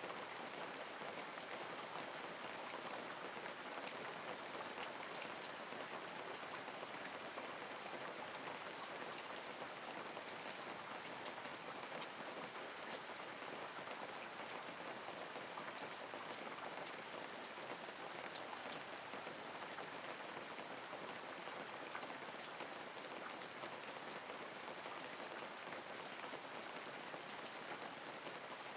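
Steady light rain falling, with individual drops heard as fine ticks over an even hiss.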